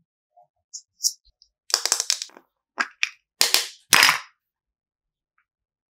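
Soft modelling clay worked in the fingers, giving a run of sharp crackles and pops: a few small ticks, then a dense cluster from about two seconds in that stops after about four seconds.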